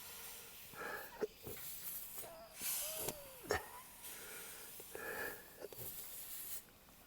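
T-handle reamer from a tubeless tire repair kit being worked in and out of a puncture in a tractor tire. It makes intermittent rasping scrapes and clicks, with a short rising-and-falling squeak about three seconds in.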